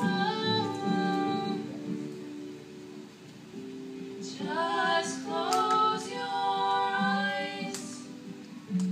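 Women singing together in long held notes, at times in harmony, over a sustained instrumental accompaniment.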